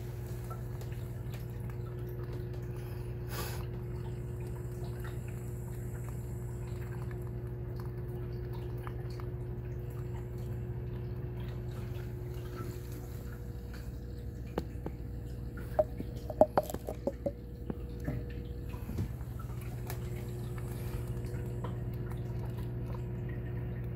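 Steady low hum of reef aquarium pumps with water dripping and trickling. A brief run of sharp clicks and light ringing taps comes about two-thirds of the way through.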